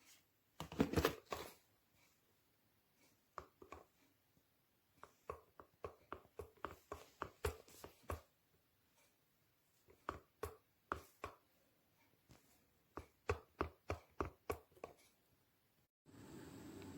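Runs of sharp taps and knocks, about four a second, with a louder cluster about a second in. About a second before the end they give way suddenly to a steady hiss.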